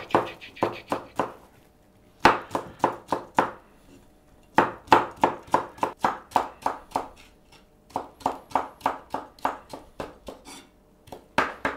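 Chinese cleaver chopping cucumber into thin strips on a wooden cutting board. Quick, even knocks, about four a second, come in several runs with short pauses between them.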